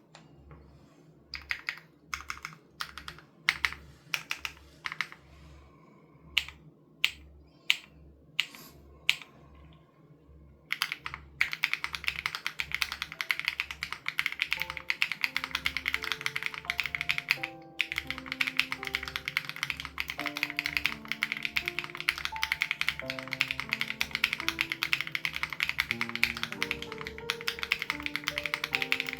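Typing on an SPM AL87B mechanical keyboard with BSUN Raw switches and the sound-dampening foam removed: a few separate key clicks at first, then fast continuous typing from about eleven seconds in, with a brief pause. Background music with a steady low beat plays under it, a melody joining partway through.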